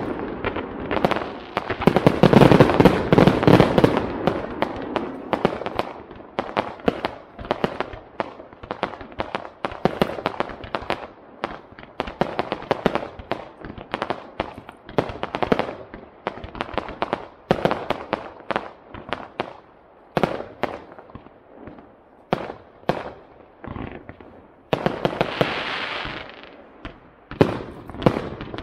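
Aerial fireworks display: shells bursting in a dense, rapid volley for the first few seconds, then a string of separate bangs and crackles. Near the end comes a hissing rush of about a second and a half, followed by more bangs.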